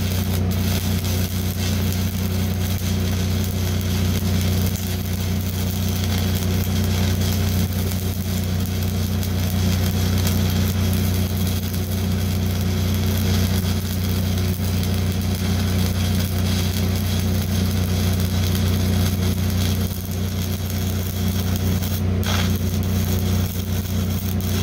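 Stick-welding arc from a 5/32 E6010 (P5) electrode crackling steadily as it burns a root pass into rusty steel, over a steady low hum.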